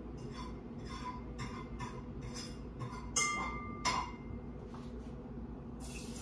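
Kitchen utensil working in a bowl in short strokes about two a second, then two sharp clinks against the bowl that ring briefly. Near the end a steady sizzling hiss starts as food goes into the hot pan on the stove.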